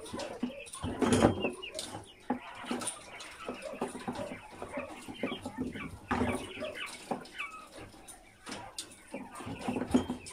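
A flock of white Polar Giant quail in a wire cage, giving many short chirps and soft calls, with scattered clicks and knocks. The loudest burst comes about a second in.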